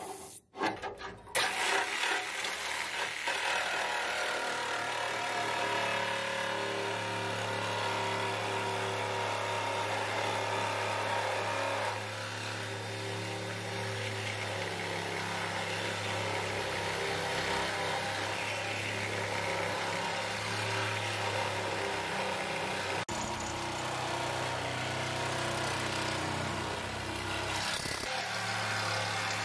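Reciprocating saw running steadily as its blade cuts through the sheet-steel floor pan of a Mazda Miata. The saw stops briefly and starts again just after the beginning.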